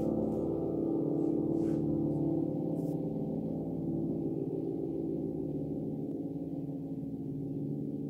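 Upright piano's last chord ringing out after the hands leave the keys: several notes held together, slowly fading.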